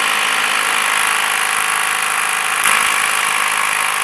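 Impact wrench running steadily on an engine mount bolt, a loud continuous mechanical noise that shifts slightly about two-thirds of the way through.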